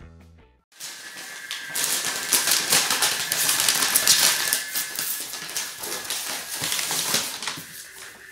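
Brown kraft paper wrapping crinkling and tearing as it is pulled off a cardboard box: a dense run of crackles that starts about a second in and eases toward the end.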